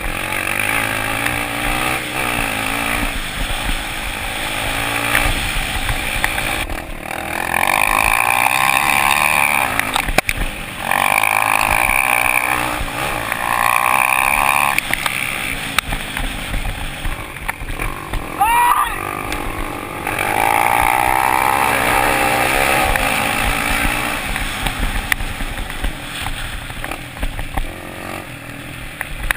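Dirt-bike engines racing, revving hard in repeated bursts of two to three seconds, with the pitch and level dropping between them.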